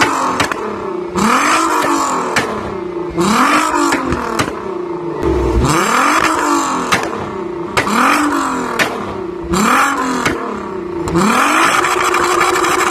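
Volkswagen Golf Mk5 R32's 3.2-litre VR6 engine free-revved through its twin-pipe exhaust: about seven quick blips, each rising and then falling in pitch. Sharp pops and bangs come from the exhaust as the revs drop.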